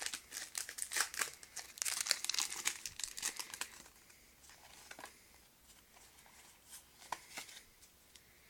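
Pokémon TCG booster pack's foil wrapper crinkling and tearing open, with dense crackling for the first few seconds. Then only a few faint clicks of handling.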